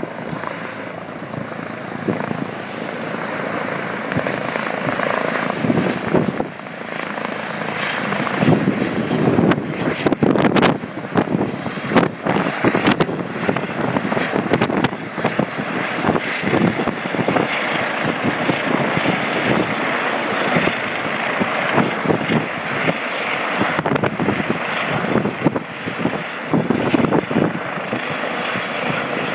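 Medical helicopter flying in and landing on a helipad, its rotor and engine running steadily.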